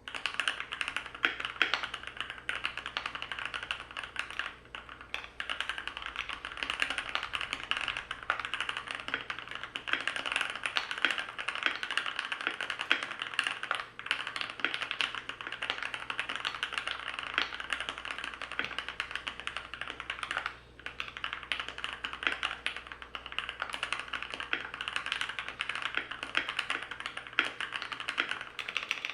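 Continuous fast typing on a Keychron Q3 mechanical keyboard with lubed Gateron Yellow Pro linear switches and sound-dampening foam installed: a dense stream of keystrokes, broken by short pauses about 5, 14 and 20 seconds in.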